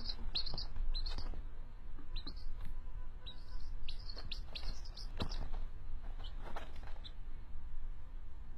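Baby chick peeping: short, high, downward-sliding peeps in irregular runs, which stop about seven seconds in.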